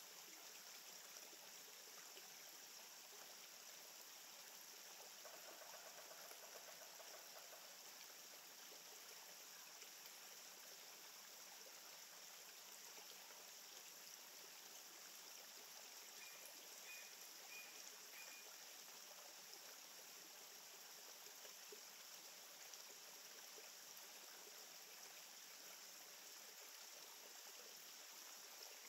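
Faint, steady rushing noise with a high hiss over it. A faint held tone comes in about five seconds in, and a few short, faint high chirps about two-thirds of the way through.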